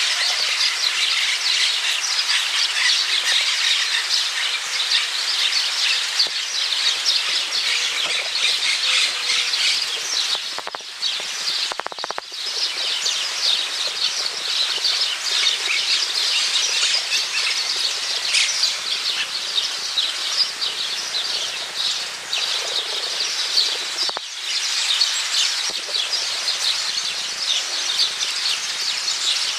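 A dense chorus of many small birds chirping and twittering without a pause, briefly dropping out twice, about a third of the way in and again past the middle.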